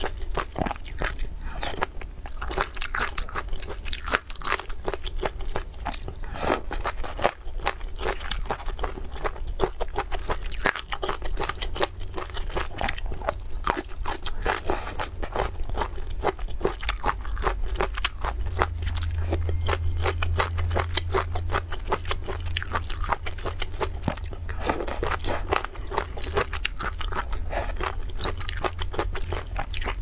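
Close-miked chewing and crunching of spicy chicken feet, a dense run of sharp clicks and crackles from bitten skin and cartilage that keeps up without pause.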